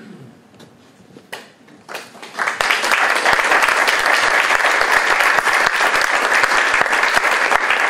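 Audience applauding: a few single claps, then full applause building from about two seconds in and holding steady.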